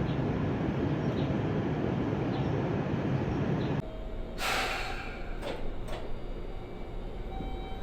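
Fukuoka City Subway 1000N series train running with a steady rumbling roar that cuts off suddenly. After that comes a short burst of compressed-air hiss and two sharp clicks, as from the train's air brakes or door gear.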